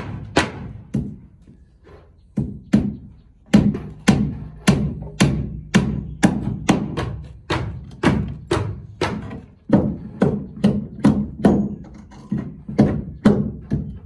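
Hammer driving nails into wooden boards: sharp, regular blows about two a second, sparse for the first few seconds and then continuous.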